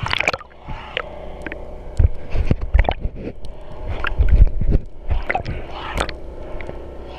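Snorkeller's camera breaking the water surface with a splash, then underwater sound: gurgling bubbles, scattered sharp clicks and low muffled thumps from swimming down to a mussel-covered net, the thumps loudest around four seconds in.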